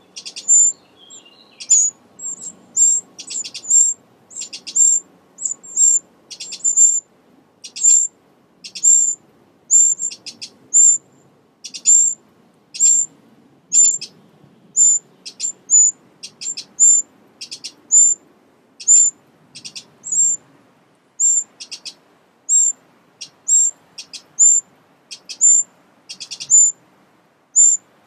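Eurasian wrens at the nest giving short, high-pitched calls, repeated about once or twice a second.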